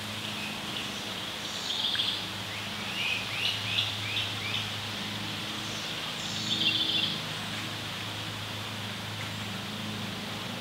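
Birds calling: a short call about two seconds in, a run of quick rising chirps a second later, and another call near the seven-second mark. Under them run a steady low hum and a constant hiss.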